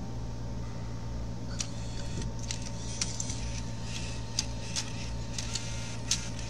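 Bose Wave 3-CD changer mechanism working, with a series of short, irregular clicks and ticks from about a second and a half in, over a steady low hum. This is the repaired changer being switched between discs.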